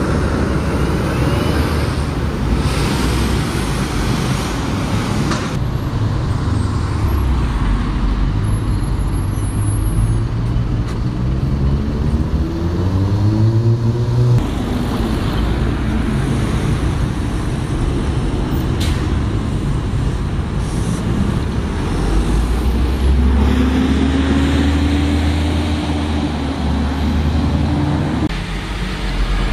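Road traffic with single-deck buses and cars passing at a junction. About halfway through, one bus's engine note climbs steadily as it accelerates away, then drops off suddenly. Another engine is heard near the end.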